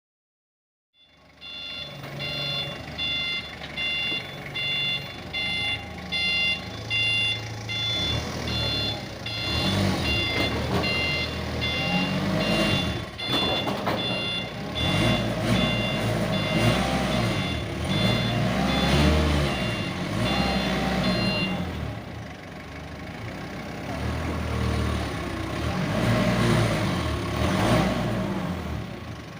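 A delivery vehicle's reversing alarm beeps steadily about twice a second over its engine, which rises and falls as it manoeuvres. The beeping stops a little past twenty seconds in, and the engine keeps running.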